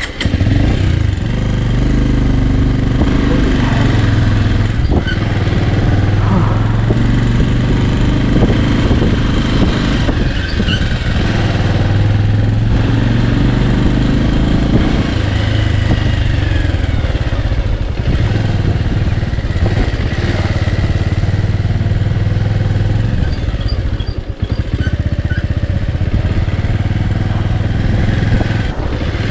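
Bajaj Avenger 160 Street motorcycle engine running steadily while the bike is ridden, its note shifting a little with the throttle and dipping briefly about 24 seconds in.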